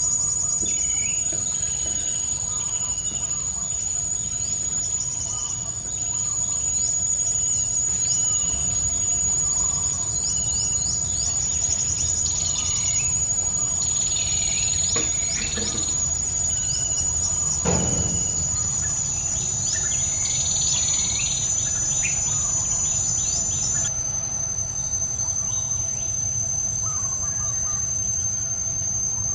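A steady high-pitched insect drone, with many short, high, falling chirps over it and a single thump about eighteen seconds in.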